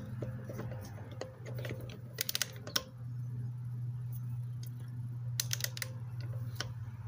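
Craftsman 1/2-inch click-type torque wrench clicking on a wheel lug nut: two short runs of quick clicks, one about two seconds in and one about five and a half seconds in, over a steady low hum.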